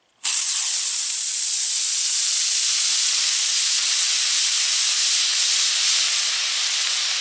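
24 mm E6 long-burn model rocket motor igniting and burning: a loud hiss that starts suddenly about a quarter second in and holds steady for about seven seconds, weakening slightly toward the end.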